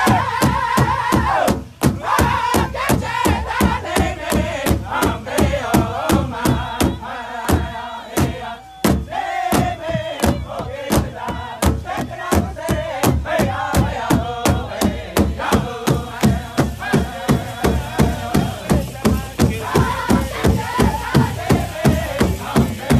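Powwow drum group singing in loud, high-pitched unison over a large shared hide drum struck together in a steady beat, about three strokes a second.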